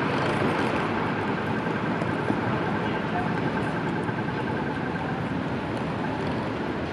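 Steady city street noise of distant traffic, with a faint high whine that fades out about five seconds in.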